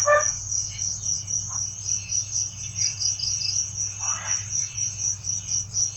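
Crickets chirping in a fast, even rhythm of about four high-pitched pulses a second, over a steady low hum.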